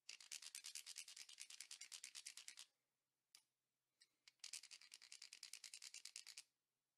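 A wooden dowel rubbed fast along the notches of a notched wooden stick (a whimmy-diddle or propeller-stick toy), giving a rapid rasping run of clicks. There are two strokes of about two seconds each, with a few single clicks between them. The vibration is what sets the toy's propeller spinning.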